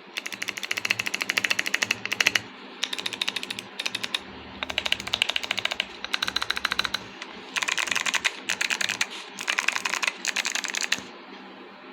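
Fast typing on a CIY Tester 68 mechanical keyboard with Kailh Box White clicky switches and XDA PBT keycaps: rapid key clicks in about five runs with short pauses between, stopping shortly before the end.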